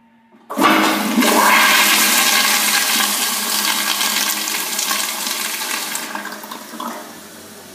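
Pressure-assisted toilet flushing: a sudden loud whoosh starts about half a second in and runs for about five seconds, then dies down to a quieter rush of water near the end as the flush finishes.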